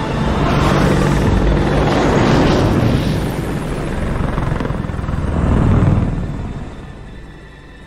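Rushing, aircraft-like noise of a flying craft passing overhead. It swells twice, is loudest about six seconds in, then dies away near the end.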